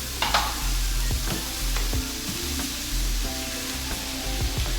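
Onion, garlic and ginger sizzling as they sauté in a pan, stirred with a utensil that clicks and scrapes against the pan now and then. Faint background music runs under it.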